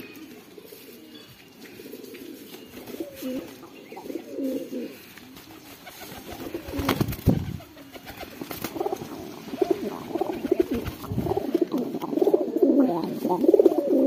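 Domestic pigeons cooing, the calls growing louder and busier toward the end. There are sharp wing flaps about halfway through as a pigeon flutters down onto the outstretched hand.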